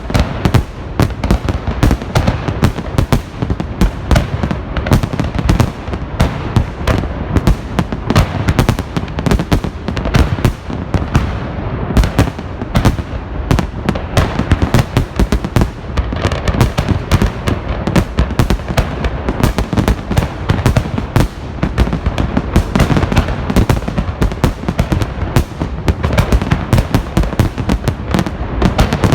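Large aerial fireworks display: shells bursting in a dense, unbroken run of loud bangs and crackles, several a second.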